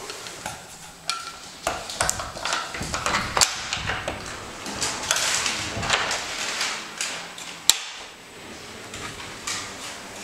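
Pocket door being worked and slid along its track, with a run of clicks and knocks from its Von Morris mortise privacy lock and flip-out edge pull. The sharpest is a single metallic click about three-quarters of the way in.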